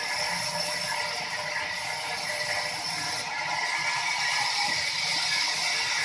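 Sawmill machinery running: a steady mechanical rattle with a constant high whine.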